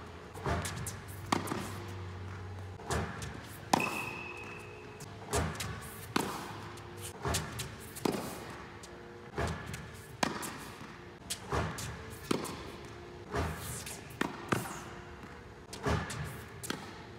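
Tennis balls being volleyed with a racquet as a Head Gravity Pro ball machine feeds them: a sharp hit about every second, some closely doubled, echoing in an indoor court hall.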